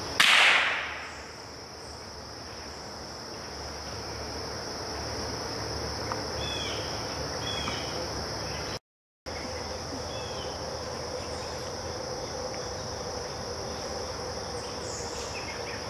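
A single gunshot just after the start, its echo dying away through the woods over about a second, over a steady high chorus of insects. The sound cuts out briefly about nine seconds in.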